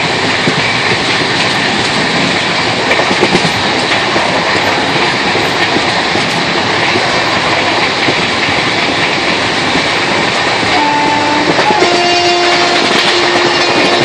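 Train running along the track, heard from inside a coach: a steady clatter and rumble of wheels on rails. About eleven seconds in a horn sounds briefly, then holds a longer steady note near the end.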